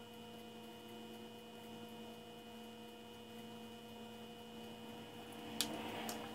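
Faint steady electrical hum with a few fixed tones, with a single sharp click about five and a half seconds in and faint handling noise after it.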